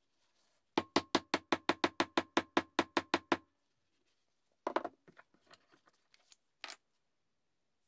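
A wooden chisel handle struck from above by hand in a fast, even run of about eighteen knocks, roughly seven a second, driving it down onto the steel tang of a chisel clamped in a vise. A few lighter, scattered knocks follow.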